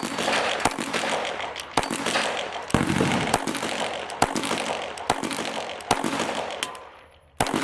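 A run of about ten gunshots, roughly one a second at an uneven pace, each followed by a long rolling echo.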